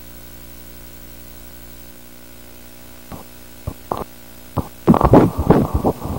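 Fetal heartbeat heard through an ultrasound machine's pulsed Doppler at ten weeks of pregnancy. A steady low hum gives way to a few scattered clicks. From about five seconds in, a loud, rapid, regular whooshing pulse of the fetal heart begins.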